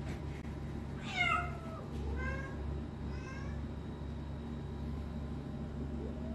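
A young domestic cat meowing: three short meows about a second apart, the first the loudest, then another starting near the end, over a steady low hum.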